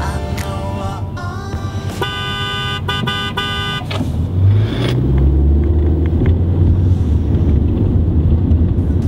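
A car horn honks, one longer blast and then a few short toots about two seconds in. It is followed by the steady low rumble of a car's engine and road noise heard from inside the cabin.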